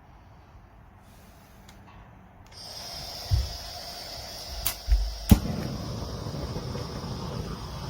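Propane weed burner torch: fairly quiet for the first couple of seconds, then a steady gas hiss at low flow comes up, with a few sharp clicks and knocks around the middle.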